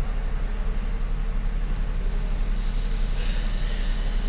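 Mercedes-Benz SLK 350's V6 engine idling steadily, with a steady hiss coming in about two and a half seconds in.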